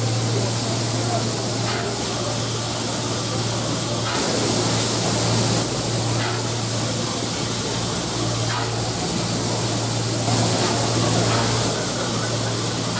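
Steam hissing steadily from LMS Coronation Class 4-6-2 no. 46233 'Duchess of Sutherland' as the locomotive stands at rest, over a steady low hum, with crowd chatter.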